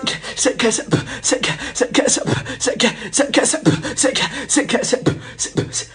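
Fast, dense percussion: a rapid run of sharp crashing strikes over occasional deep drum beats, with a few short pitched notes.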